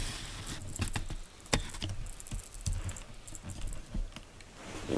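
Black cat pawing at a toy mouse on a sisal scratching board: scattered light clicks and scratches with a faint jingling. Its untrimmed claws snag on the toy and sisal.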